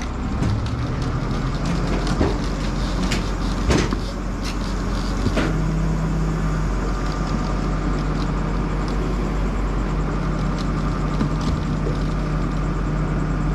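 Forklift engine running steadily while the scored-through wing of a DC-6 is forced up and down, creaking and giving a few sharp cracks in the first half as the cut wing structure starts to break free.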